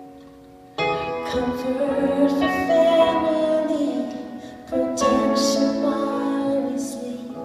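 Live piano music: slow held chords, one struck about a second in and another just before five seconds in, each fading gradually, with a melody moving above them.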